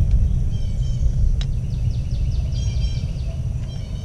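A songbird singing in quick runs of repeated high notes over a steady low outdoor rumble, with a single sharp click about one and a half seconds in.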